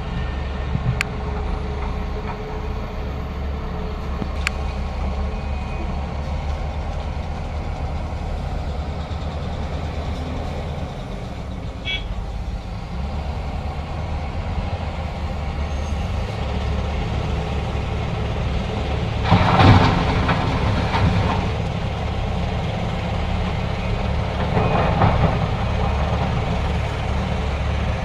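Heavy diesel construction machinery running steadily with a low rumble, with a louder rush of noise about twenty seconds in and a smaller one a few seconds later.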